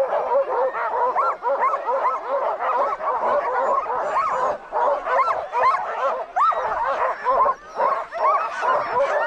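A chorus of harnessed sled dogs barking and yipping, many short calls overlapping without a pause.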